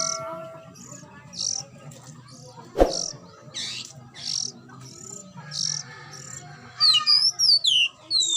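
Lovebirds chirping: short high chirps repeated every half second or so, then a quick run of swooping calls near the end. A single sharp knock sounds about three seconds in.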